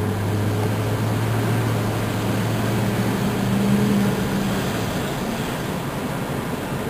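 A car driving: a steady low engine hum over tyre and road noise. The engine note swells about four seconds in, then fades out, leaving the road noise.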